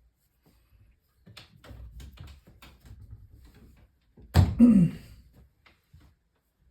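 Light tapping and clicking of tools and fittings being handled, then one loud knock about four seconds in with a brief ringing tone that falls in pitch.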